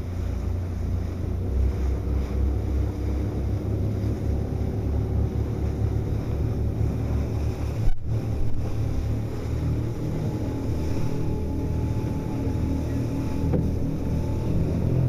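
Cheetah Marine powerboat running at speed through chop, its engine a steady drone under water rushing past the hull and wind buffeting the microphone. The sound cuts out for an instant about eight seconds in.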